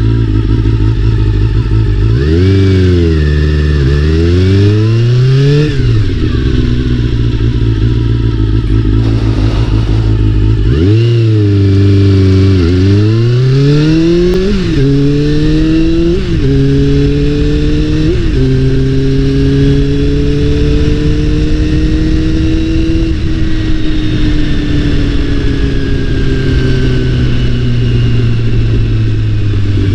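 Honda CBR400RR NC29 inline-four engine revving up and down twice, then pulling up through the gears with a short dip in pitch at each of several shifts, then holding a steady note and slowly easing off.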